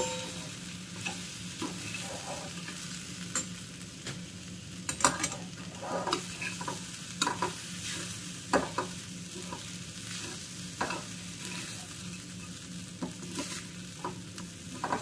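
A steel spoon stirring and scraping kande pohe in a stainless-steel kadai over a low gas flame, with irregular clinks of spoon on pan over a soft, steady sizzle.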